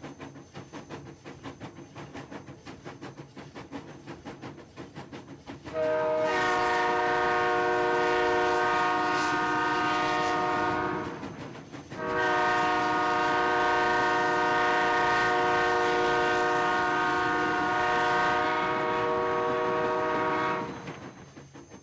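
Steam train sound effect: a steady rhythmic running beat for about six seconds, then two long blasts of a many-toned train whistle, the second one longer.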